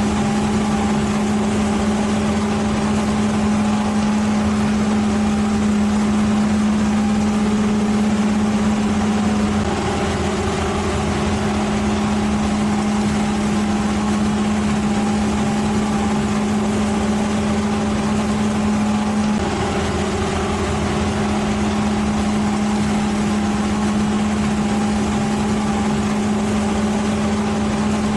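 An engine running steadily at a constant high speed, holding one even pitch, which shifts slightly about ten seconds in and again about twenty seconds in.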